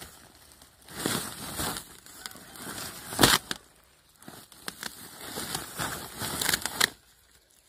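Woven plastic sack full of stones rustling and crinkling as it is handled and pulled up, with one sharp knock about three seconds in.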